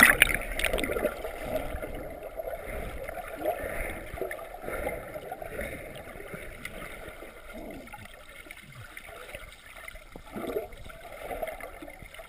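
Muffled underwater sound through a submerged GoPro housing: gurgling, bubbling water and the swish of a swimmer's movements. The loud splash of the dive fades in the first second.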